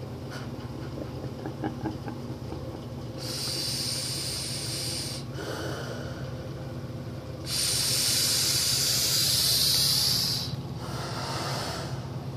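Two long hissing rushes of air or vapor venting through a smoke-puffing steampunk gas mask, the second louder and longer. A steady low hum runs underneath.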